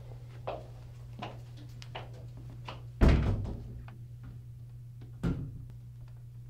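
Footsteps on a hard tiled floor, about one every 0.7 seconds, then a restroom stall door banging loudly about three seconds in, echoing off the tiles, and a second, shorter bang a couple of seconds later.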